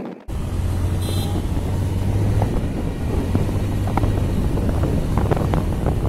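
Bajaj Pulsar 150's single-cylinder engine running steadily while riding, a low hum with wind noise on the helmet-mounted microphone.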